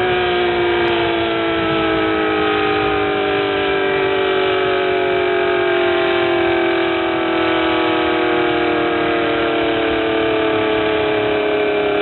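ACA Allertor outdoor warning siren sounding a loud, steady tone that slowly falls in pitch throughout: the siren winding down at the end of its test.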